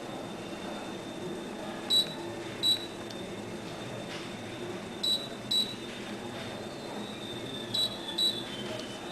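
Brastemp Tira-Manchas 9 kg top-load washing machine beeping: three pairs of short high beeps, a pair about every three seconds, over the machine's steady running noise.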